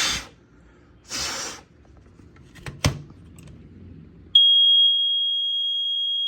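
First Alert SA76RC smoke alarm's horn sounding one loud, steady, high-pitched tone. It starts suddenly about four and a half seconds in and does not pulse. Before it there are two short hissing bursts and a sharp click.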